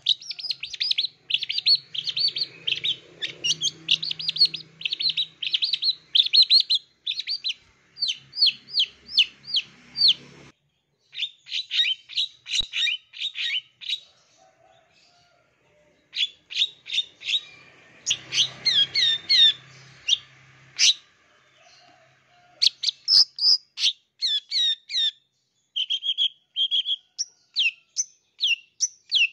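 Long-tailed shrike (cendet) singing: fast runs of sharp, high chirps and short whistled notes, broken by a pause of a couple of seconds about halfway. The song is a run of mixed borrowed phrases.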